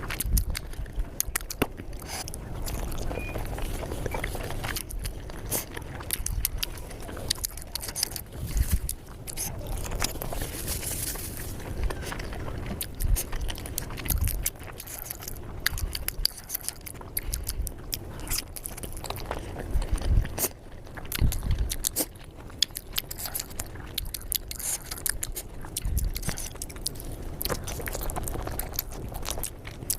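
Close-miked chewing and biting of momos (steamed dumplings) with chutney: irregular small clicks and wet mouth sounds throughout.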